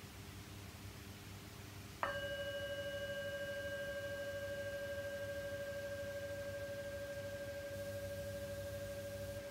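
A small meditation bell is struck once about two seconds in and rings on with a clear, steady tone that fades very slowly. The chime marks the end of the mindfulness practice.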